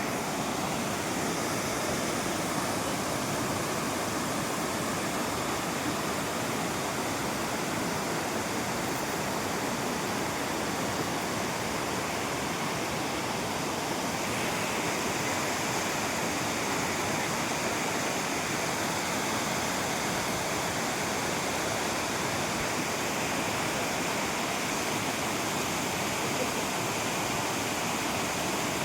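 Waterfall: a steady rush of falling water, a little brighter and hissier from about halfway through.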